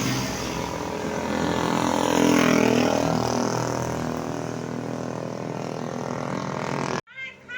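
Tour bus engine driving past close by, growing loud about two seconds in and then easing off. The sound cuts off abruptly near the end.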